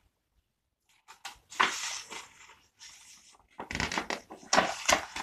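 Pages of a picture book being turned and handled: dry paper rustling in two bouts, the first about a second and a half in and the second near the end.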